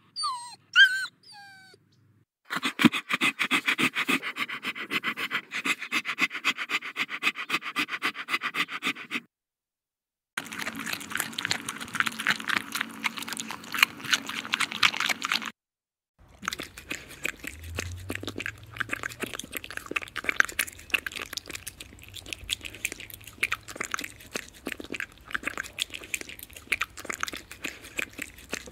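A puppy's whimper ends within the first second or two. Then come three separate takes of dogs at their bowls, eating and drinking: fast runs of wet clicking mouth sounds, with short silences between the takes.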